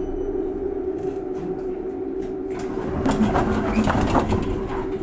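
Tram in motion heard from inside the car: a steady whine from its electric drive over the low rumble of the running gear, with a louder, busier stretch of rattling from about halfway.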